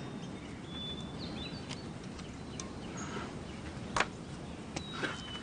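Outdoor ambience with birds chirping in short, high calls and glides. About four seconds in there is a single sharp knock, the loudest sound, with a fainter one just before the five-second mark.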